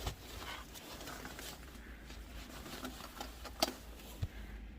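Footsteps crunching through deep snow, a few soft irregular crunches and clicks over a low steady rumble of wind on the microphone.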